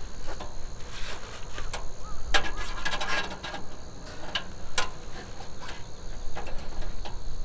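Pellets burning in a wood-and-pellet camping stove, crackling with scattered sharp ticks and clicks, over a faint steady high whine.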